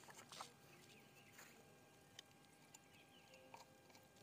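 Near silence: faint outdoor ambience with a few soft taps and rustles as a small hand net is handled over a plastic cup, the loudest about half a second in.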